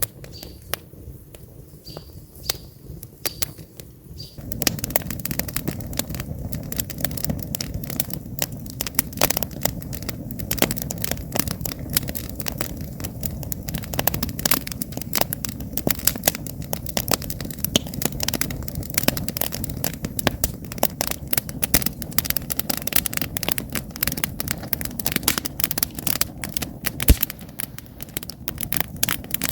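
Wood campfire crackling and popping over a steady low rush of burning flames. About four seconds in, the fire's sound becomes fuller and louder.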